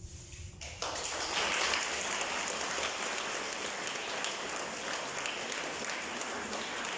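Audience applauding. The clapping starts suddenly about a second in after a brief hush, then carries on steadily.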